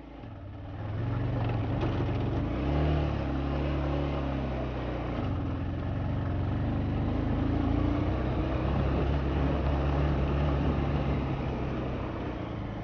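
Motorcycle engine running at low revs while riding a rough dirt track, its note shifting up and down a couple of seconds in as the throttle changes, under a steady rushing noise.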